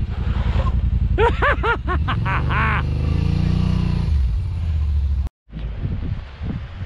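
Side-by-side UTV engine running low and steady as it crawls down a rock ledge, with a quick run of short rising-and-falling squeaks about a second in. The sound cuts off abruptly about five seconds in.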